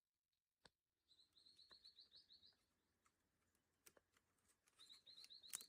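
Faint bird calls over near silence: two runs of quick, high repeated chirps, the first about a second in and the second near the end, with a few soft clicks between.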